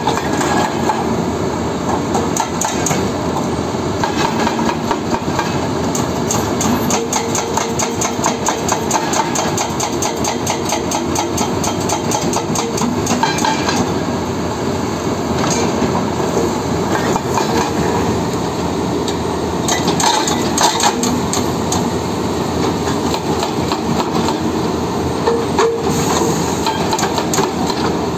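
Excavator-mounted hydraulic breaker hammering on rock in rapid, continuous blows, in several long runs, over the excavator's diesel engine running steadily.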